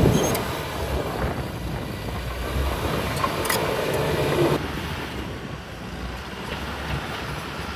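Caterpillar D6R XL crawler bulldozer's diesel engine running under load, with a few short clanks from the undercarriage. The sound drops noticeably quieter about halfway through.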